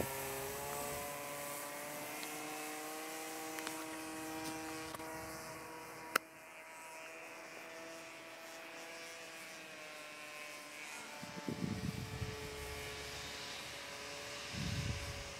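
Radio-controlled model aircraft flying overhead, its motor and propeller making a steady hum whose pitch drifts slowly as it flies. A single sharp click comes about six seconds in, and two brief low rumbles come in the later part.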